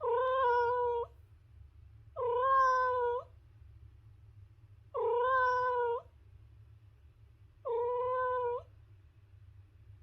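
Domestic cat meowing: four drawn-out meows of about a second each, spaced a couple of seconds apart, each held at a fairly steady pitch.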